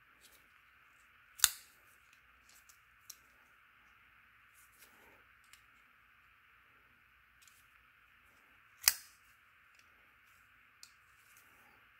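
Hinderer XM-18 folding knife's blade snapping into place twice, two sharp metallic clicks about seven seconds apart, with faint small clicks of handling between them as the blade centering is checked.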